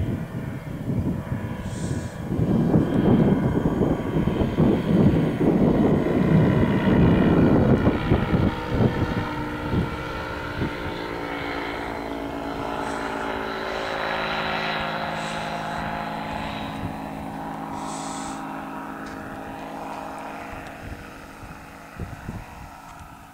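Kolb ultralight's engine and propeller droning as the plane flies low past, loudest in the first several seconds, then a steady hum that slowly fades as it moves away.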